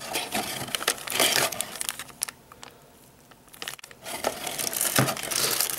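Clear plastic packaging bags crinkling and rustling as hands dig accessories out of a cardboard box, with a short lull in the middle.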